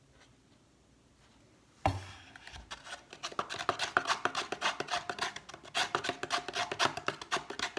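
A single knock about two seconds in, then rapid, irregular clicking and scraping: a tool stirring glue solution and paint in a small plastic cup to mix slime.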